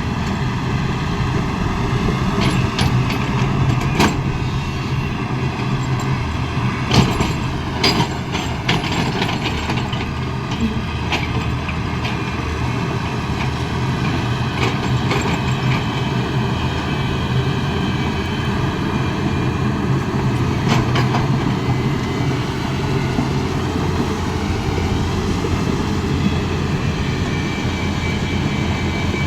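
Heavy diesel engine running steadily, with scattered sharp knocks and clanks, the loudest about seven seconds in.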